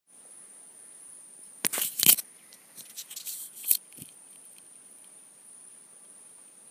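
Steady high-pitched insect chorus, with a burst of loud knocks and rustling from about one and a half to four seconds in.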